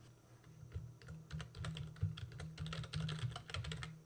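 Computer keyboard being typed on: a quick run of light keystrokes, starting about half a second in and running for roughly three seconds, as an email address is typed.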